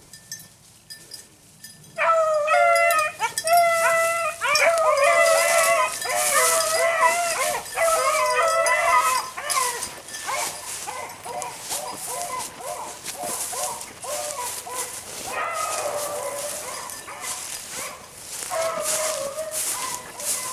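Beagles baying on a rabbit's trail. A burst of loud, overlapping bawls starts about two seconds in, then the baying turns fainter and more distant, with a few louder cries near the end.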